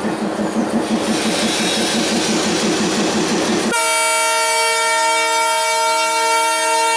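Diesel locomotive of Bangladesh Railway rumbling past at close range with a regular beat as it pulls away. A little over halfway in, its horn sounds suddenly as one loud, steady, multi-tone blast that is held.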